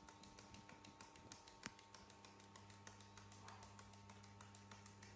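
Near silence: room tone with a faint steady hum and faint ticking, and one sharper click about a second and a half in.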